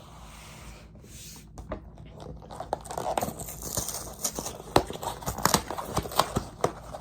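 Plastic wrapper of a granola bar being torn open and handled, with a dense run of crinkles and crackles that grows busier from about two and a half seconds in.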